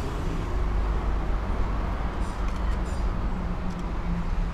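City traffic noise from a busy road: a steady low rumble of bus, minibus and car engines.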